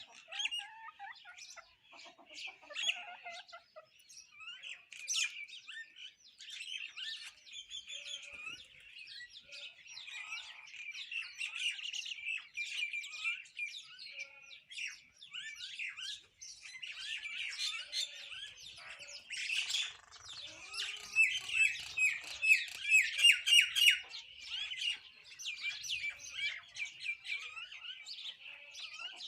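A flock of sparrows and common mynas chirping continuously, many short calls overlapping. The chorus is busiest and loudest in a run of rapid chirps about three quarters of the way through.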